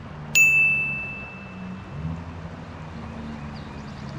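A single bell-like ding sound effect: one sharp, high ringing note that dies away over about a second and a half. Under it runs the steady rush of stream water.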